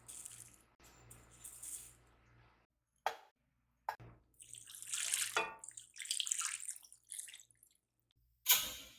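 Several short stretches of water-like hissing and splashing, cut one after another with brief silent gaps, ending with a sharp louder burst near the end.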